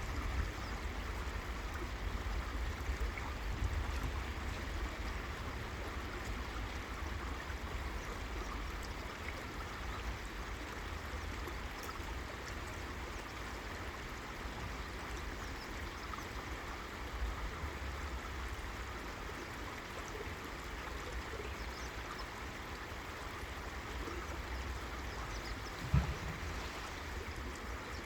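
River water flowing in a steady rush, with a low rumble underneath and one brief low thump near the end.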